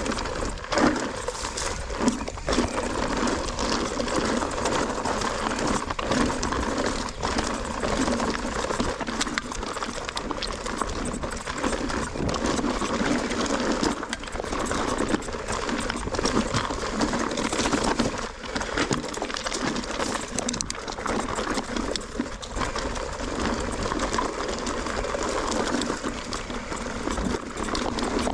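Mountain bike clattering and rattling as it rolls over rough trail, with a steady hiss of tyre and wind noise and frequent sharp knocks from the wheels hitting rocks and roots.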